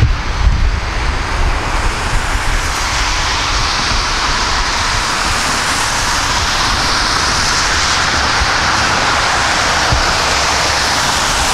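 Airbus A320 airliner on final approach, its jet engines making a steady rushing roar that grows louder and brighter over the first few seconds as the aircraft comes in low toward overhead. A gusty low rumble of wind on the microphone is mixed in at the start.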